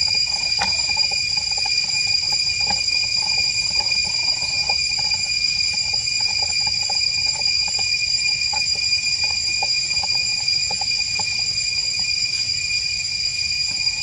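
Forest ambience dominated by a steady, high-pitched insect drone, with many short chirping calls scattered through it and a low rumble underneath.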